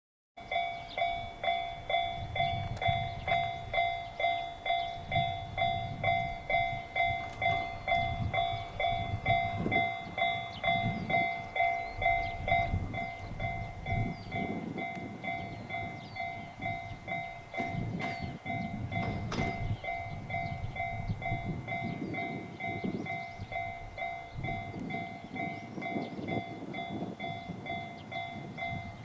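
Japanese level-crossing warning bell ringing in a steady repeating pulse while a train passes over the crossing, its wheels clattering over the rail joints under a low rumble. The bell is loudest in the first half and grows less distinct as the train noise takes over.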